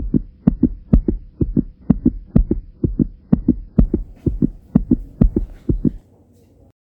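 Heartbeat sound effect: a steady run of low thumps, about two a second, some in close pairs, over a faint hum, stopping about six seconds in.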